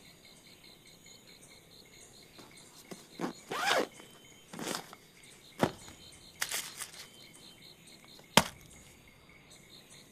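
A bag being handled and its contents checked on a wooden table: short rustles and scrapes, then two sharp clicks or knocks, over a steady chirping of crickets.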